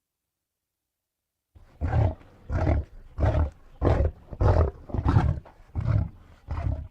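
Creature sound effect made from processed animal recordings: after about a second and a half of silence, a run of about nine deep, rough calls repeating steadily, roughly every 0.6 s.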